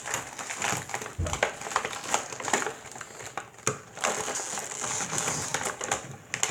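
Plastic toy packaging crinkling and crackling, with irregular small clicks and taps as small plastic toy pieces are handled and pulled free, and a soft low bump about a second in.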